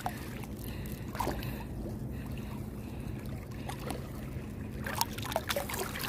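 Light splashes of a hand groping through shallow seawater for clams, a few short strokes about a second in and near the end, over a steady low rumble.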